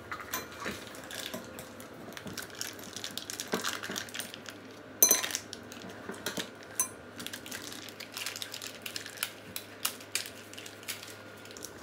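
Foil cream cheese wrappers crinkling as they are peeled open, with taps and clinks on a stainless steel mixing bowl. One sharp metallic clink rings briefly about five seconds in.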